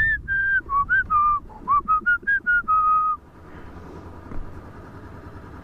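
A person whistling a short tune of about a dozen quick notes, ending on a longer held note about three seconds in. After that only the low, quiet hum of the motorcycle rolling slowly is left.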